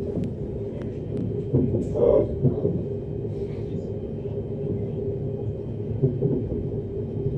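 Steady rumble of an ES2G Lastochka electric train running, heard from inside the carriage, with a faint steady whine above it and a few sharp clicks.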